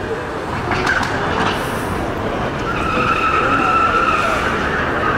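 Car tyres squealing over loud rushing noise, with one long steady squeal from a little under three seconds in until near the end.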